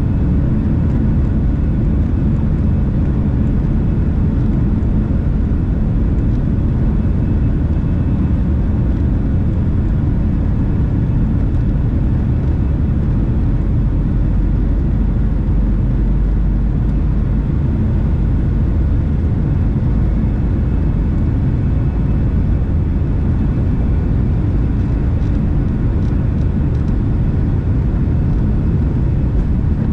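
Steady low rumble of cabin noise inside a Boeing 757-300 taxiing, its engines running at low power, with faint steady tones above the rumble.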